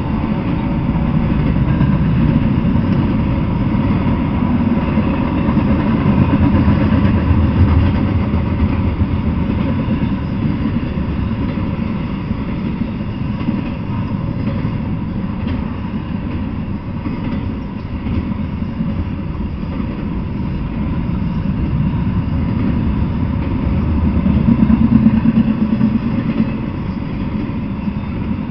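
Double-stack intermodal freight train rolling past on the rails: a steady low rumble of the wheels and cars that swells twice as the cars go by.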